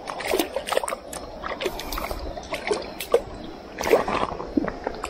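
Splashing and sloshing in shallow stream water as a hand reaches in to grab a hooked smallmouth bass at the surface, with a louder splash about four seconds in.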